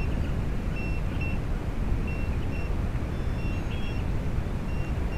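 Steady low rumble of wind buffeting an outdoor microphone, with short, high, level tones recurring, mostly in pairs, every second or so.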